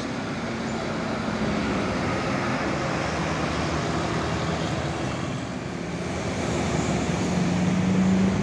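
Busy road traffic: a tour bus's diesel engine running as it drives past, mixed with motorcycles and cars. A low engine hum grows louder near the end.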